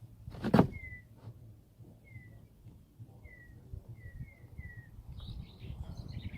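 A bird chirping: six short high chirps, each dipping slightly in pitch, the last three in quick succession. One loud knock sounds about half a second in, and a scratchy rustle starts near the end.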